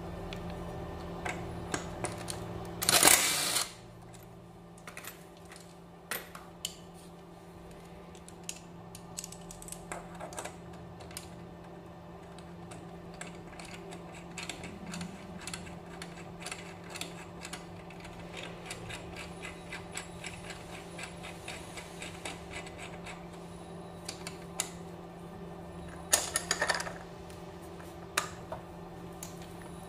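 Cordless impact driver briefly running on the crank arm bolt about three seconds in. Then many light clicks and taps of hand tools on the crank, with a second short burst of tool noise near the end, over a steady low hum.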